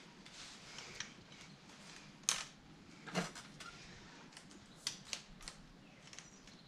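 Scattered light metallic clicks and taps from a kids' bike rear hand brake being fastened and tested: a small tool on the cable-clamp nut and the brake lever squeezed to check the cable tension. The sharpest click comes a bit over two seconds in, with a few quick ones around five seconds.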